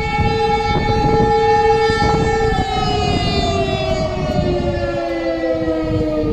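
Several civil-defence alarm sirens sounding together, holding a steady tone and then, from about two and a half seconds in, sliding slowly down in pitch as they wind down.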